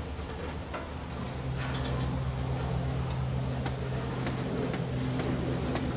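Freight train of tank cars rolling slowly past, with a steady low engine hum and rumble and several sharp clicks and squeaks from the wheels on the rails.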